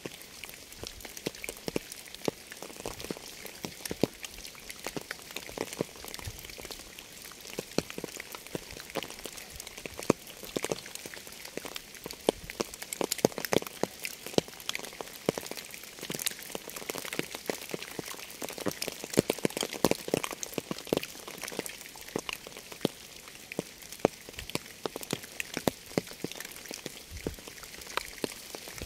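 Steady rain: an even hiss with many separate drops tapping irregularly on a surface.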